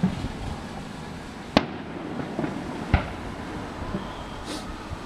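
Fireworks bursting: sharp bangs roughly a second and a half apart, the loudest about a second and a half and three seconds in, with fainter pops between them. A brief high hiss comes near the end.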